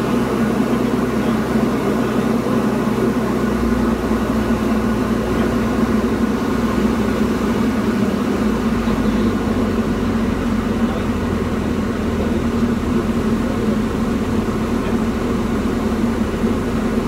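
Diamond DA40's single piston engine and propeller droning steadily in flight, heard inside the cockpit.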